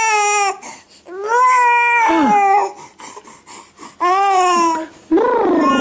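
Baby crying in drawn-out wails, four of them with short gaps between, each held on one pitch and then dropping at its end.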